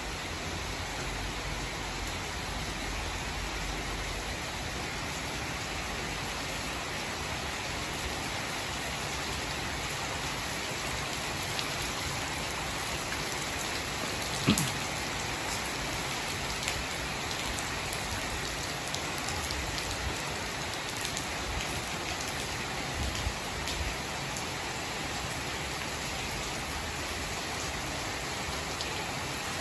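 Steady rain falling on the leaves of garden trees and shrubs and on the ground, an even hiss of countless drops. One short knock about halfway through stands out above the rain.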